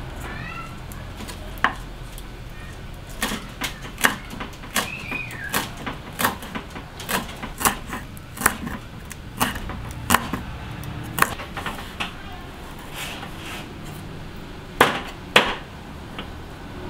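Kitchen knife chopping through green leaves onto a wooden chopping board: a run of sharp knocks, one to two a second, with two louder knocks near the end.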